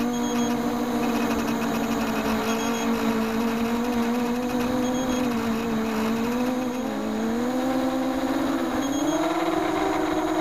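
Racing quadcopter's four DYS 1806 brushless motors spinning 6x4.5 Gemfan propellers, a steady whine heard from the camera on board. Its pitch wavers with the throttle, dips briefly about two-thirds of the way through, then climbs higher near the end.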